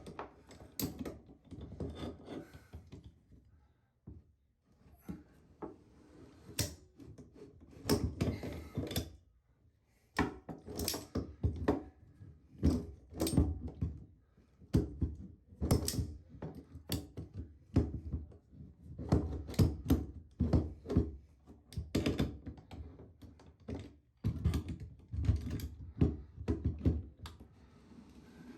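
Channel-lock pliers knocking and scraping against a shower floor drain as its inner piece is unscrewed from the outer piece: irregular clunks and clicks with short pauses.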